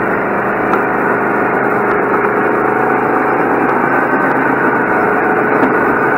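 Go-kart engine running steadily under way, heard loud and close from on the kart, its pitch nearly even throughout.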